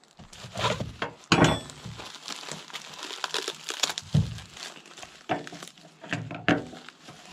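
Plastic bags and bubble wrap crinkling and rustling as small parts are unwrapped by hand, with a single loud thump a little over a second in.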